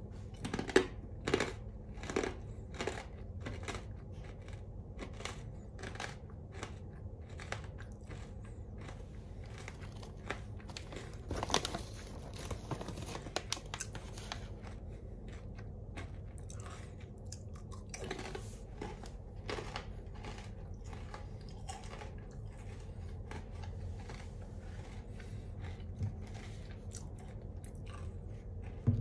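Close-up crunching and chewing of crisp Calbee sweet potato chips, a crunch every half second or so at first, then slower and softer. Partway through comes a longer rustle of the chip bag as another chip is taken, all over a steady low hum.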